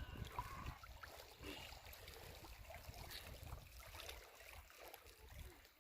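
Near silence: faint outdoor background with a low, uneven rumble and a few small clicks.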